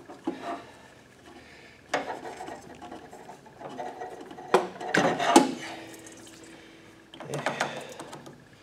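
Metal clicks, scrapes and rubbing of pliers working spring hose clamps on a rubber fuel line while an inline fuel filter is swapped out. The sharpest clicks come in a quick run about five seconds in, with another cluster near the end.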